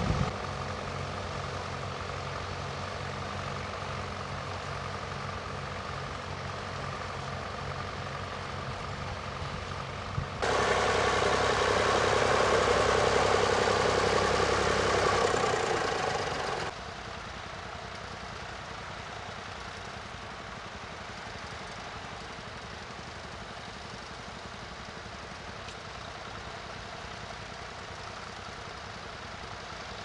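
Vintage tractor engines running under ploughing: a steady engine note for about the first ten seconds, then a sudden, much louder rushing stretch lasting about six seconds that cuts off abruptly, then a quieter steady sound.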